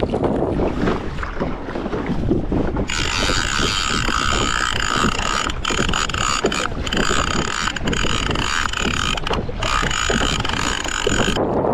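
Wind buffeting the microphone, and from about three seconds in a conventional fishing reel being cranked: a steady gear whir with a few brief pauses, stopping shortly before the end.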